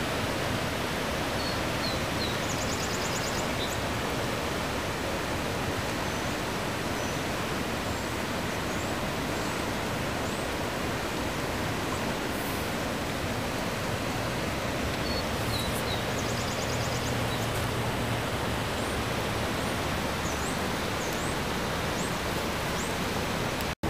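Steady rush of a river in flood pouring over and below a hydro dam, heard as an unbroken wash of water noise. Faint high chirps come and go above it.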